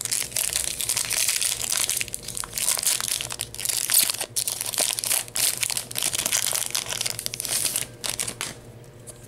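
A foil Yu-Gi-Oh Cosmo Blazer booster pack being torn open and crinkled by hand: a dense, rapid crackling of the wrapper that dies down near the end.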